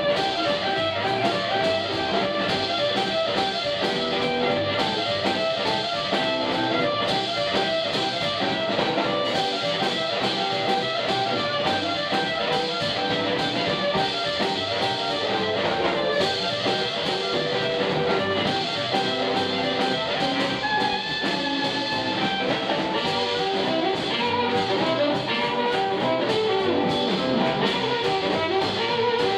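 Live blues band playing an instrumental break: blues harmonica played cupped to a microphone, over electric guitar, double bass and drums.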